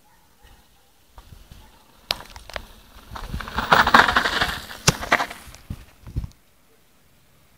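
Mountain bike rolling over dry dirt and grass as it passes close by: tyre crunch and brushing build to a peak about four seconds in, with a few sharp clicks and knocks from the bike, then fade out after about six seconds.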